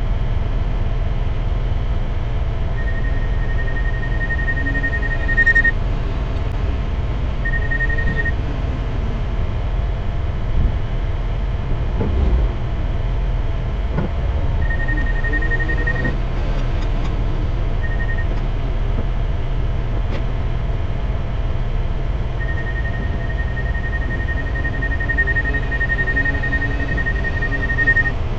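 Steady low rumble of heavy diesel engines running, from the semi truck and a Komatsu WA270 wheel loader working beside it. A high, even electronic beeping tone sounds in stretches several times, the longest near the end.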